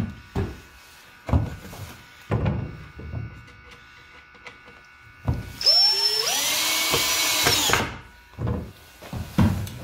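Cordless drill-driver driving a 1 1/4 inch screw into a wooden corner brace: the motor whines up in pitch and then runs steadily for about two and a half seconds, starting a little past the middle. Short wooden knocks come before it and again near the end.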